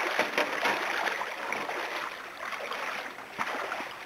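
Water splashing and sloshing around a slotted plastic crate tipped into a shallow river to release trout, over the running stream. The splashing eases off near the end, with one sharper knock about three and a half seconds in.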